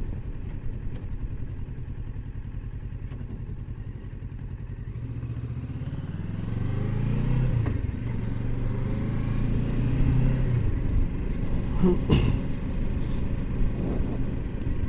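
Kawasaki Versys 650's parallel-twin engine running steadily at low revs, then pulling away with rising revs and shifting up through the gears. A brief sharp clunk comes about twelve seconds in.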